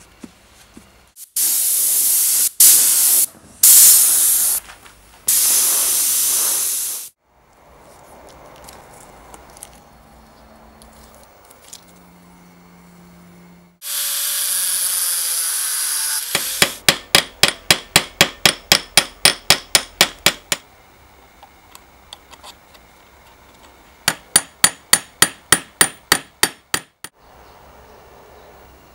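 Workshop tool sounds on metal parts: several loud hissing bursts, then a power tool running briefly and winding down, followed by two runs of steady sharp tapping at about four strikes a second.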